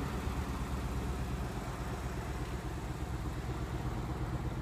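Ford Mustang GT's 5.0-litre Coyote V8 idling steadily, a low even rumble.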